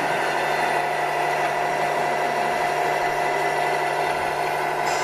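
Radio-controlled model truck's electronic sound module playing a steady diesel engine running sound.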